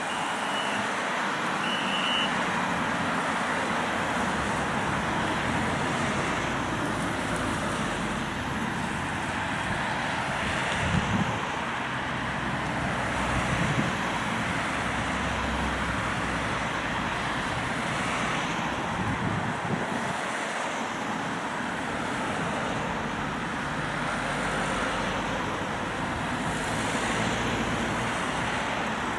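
A line of cars passing one after another: steady tyre and engine traffic noise, a little louder for a moment about a third of the way through and again around halfway.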